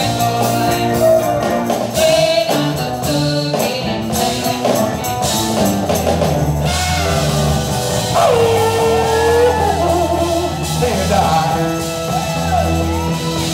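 Live band music: keyboard, drum kit and a shaken maraca, with a singing voice whose pitch slides and wavers over the accompaniment.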